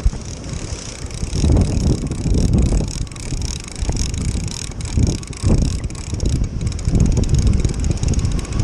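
Wind buffeting the microphone in uneven gusts, over a steady hiss of surf breaking on rocks.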